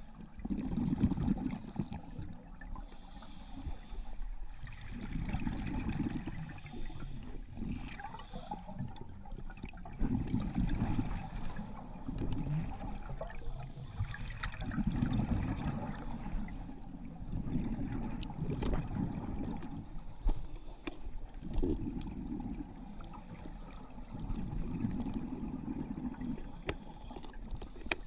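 A scuba regulator breathing underwater: bursts of exhaled bubbles rumbling every few seconds, each lasting a second or two, between quieter hissing inhalations, muffled through the camera's underwater housing.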